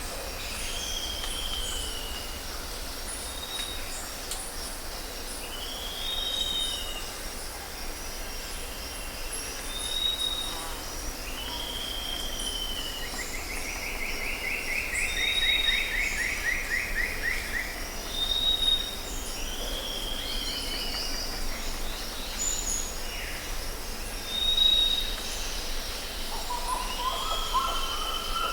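Several wild birds singing and calling over a steady background rush, with repeated short arched notes and a longer buzzy trill about halfway through.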